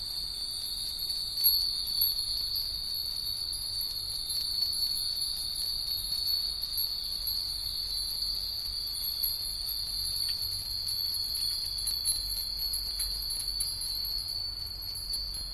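Hundreds of Japanese fūrin wind bells strung on lines, tinkling together in the breeze in a dense, continuous jingle, with two louder strikes about one and a half and two seconds in.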